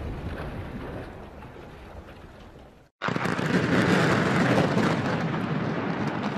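A demolition rumble dies away. After a short break, the explosive demolition of a concrete cooling tower: a loud rumble and crackle as the base gives way and concrete begins to fall, strongest about a second after it starts and then easing.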